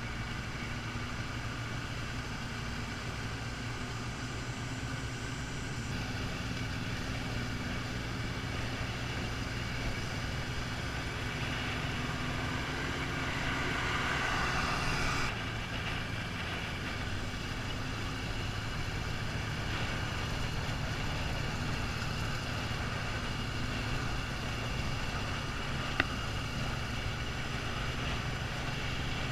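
Motorcycle engine running steadily as the bike rides along, under a constant rush of road and wind noise. About halfway through, a rising swell of noise cuts off suddenly, and a single sharp click comes near the end.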